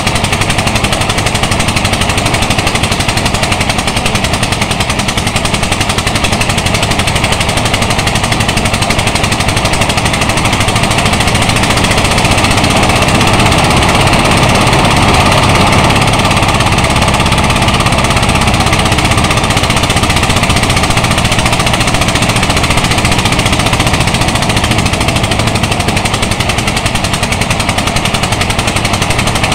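Engine-driven portable rice thresher running while threshing, with rice stalks being fed into its drum: a loud, steady, rapid mechanical clatter that gets a little louder about halfway through.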